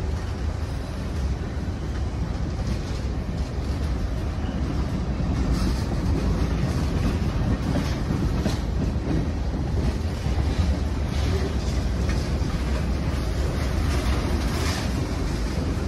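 Freight train rolling past: a steady low rumble of wheels on rail, with occasional sharper clicks.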